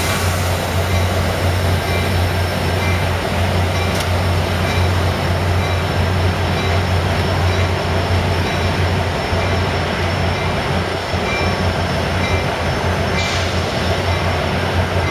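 Amtrak California F59PHI diesel locomotive running with a steady low hum, under a constant wash of train noise.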